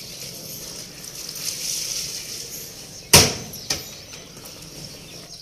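Clothes being loaded into a top-loading washing machine: a sharp knock about three seconds in and a lighter one shortly after, over a steady high hiss.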